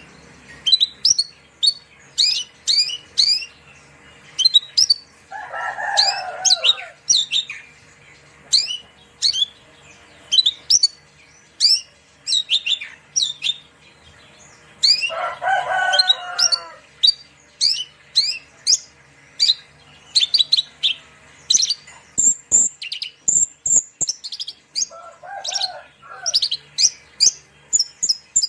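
Javan bushlark (branjangan) singing: a fast, unbroken run of short, sharp, downward-sweeping chirps, with a few high thin whistles near the end. Three times a lower, longer call cuts in, about 6, 16 and 26 seconds in.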